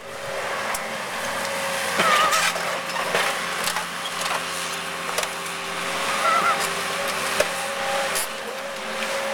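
Excavator running with a steady whine while it works over an old Mercedes 300D's body, with scattered clicks and knocks of metal, and short squeals about two seconds in and again past six seconds.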